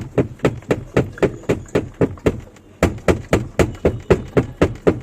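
Spin dryer drum of a Whirlpool semi-automatic washing machine knocking against its housing while spinning, a regular 'kat kat kat' about three to four times a second, with a brief break about two and a half seconds in. It is the sign of a drum wobbling too much, from a load stuffed in unevenly or from worn spring buffers under the spinner.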